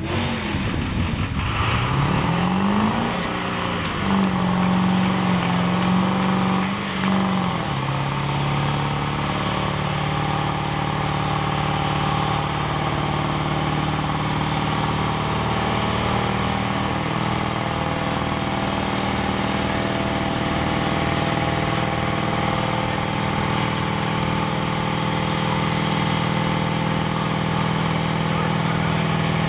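Pickup truck engine revving up sharply and held at high revs as its rear tyres spin in a long smoky burnout. A little after the first seven seconds the revs settle slightly lower and then hold steady.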